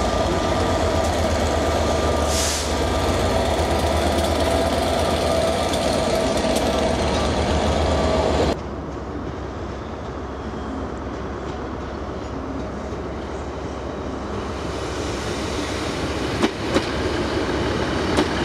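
A Class 67 diesel locomotive's two-stroke V12 running steadily, a loud drone with a constant whine. It stops abruptly at a cut, about eight seconds in. Then a Class 150 Sprinter diesel multiple unit approaches, quieter at first and growing louder, with wheel clicks over the rail joints near the end.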